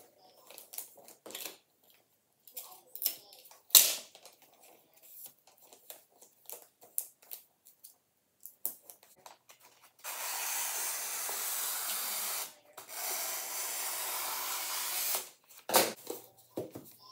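Gift-wrapping paper being folded and creased, with small crinkles and a sharp snap about four seconds in. Then two long steady paper hisses of two to three seconds each, with a short break between them, as a large sheet of wrapping paper is run out across the floor.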